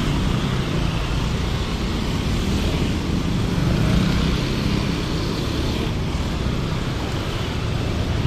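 Busy street traffic: motorcycle and car engines running steadily close by in slow-moving traffic.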